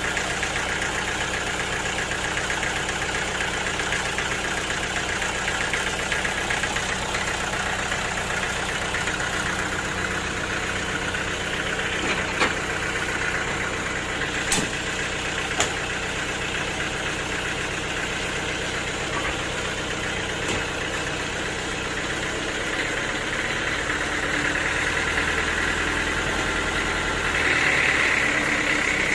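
Sawmill machinery running steadily, with a few sharp knocks about halfway through. It gets louder and brighter near the end.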